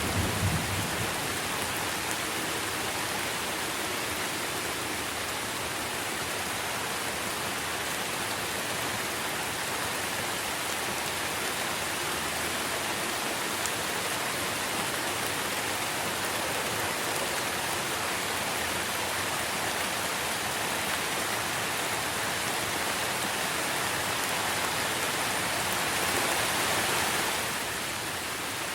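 Steady rain falling on trees. A low rumble of thunder dies away in the first second, and the rain swells slightly near the end before easing.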